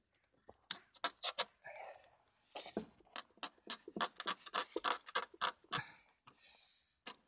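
A series of sharp crunches and knocks, coming fastest about halfway through at roughly three a second, from a person working at a car whose doors are frozen shut in hard frost.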